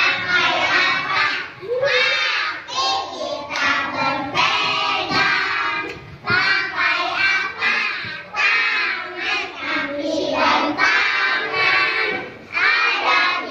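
A group of young children singing together loudly in unison, with a few short breaks between phrases.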